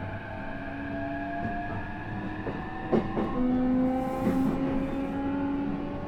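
E233 series 3000 electric train heard from inside the car while running: a steady rumble with the inverter and traction motor whine, its tones slowly rising in pitch through the first half. A couple of sharp knocks from the wheels over the track come about three seconds in.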